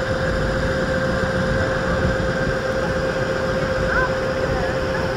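A tour ship's engine running under way with a steady drone and one constant hum-like tone over it, with water and air noise.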